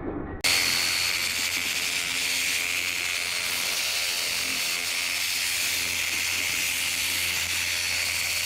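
A steady rushing hiss with a thin high whine and a low hum, starting abruptly about half a second in: a running fan, blower or motor.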